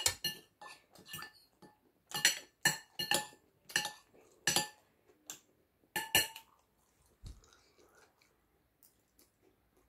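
Metal spoon clinking against a dish as food is scooped up: about a dozen sharp clinks over the first six seconds.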